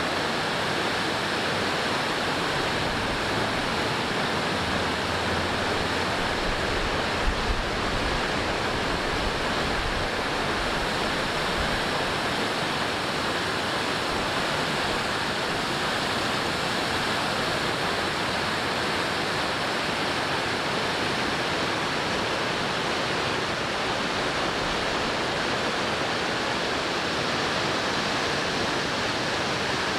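Steady, unbroken rush of falling water, as from a waterfall.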